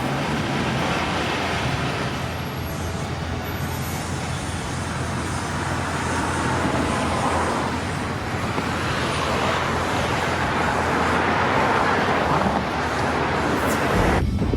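Road traffic on a busy street: a steady noise of tyres and engines that swells as vehicles pass, loudest around ten to thirteen seconds in.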